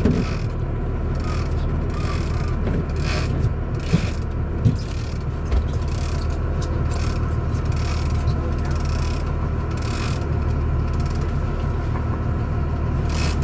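Big-game fishing reel under load from a hooked bluefin tuna: short, irregular mechanical bursts from its gears and drag, recurring every second or so. Beneath them runs the steady low hum of the boat's engine.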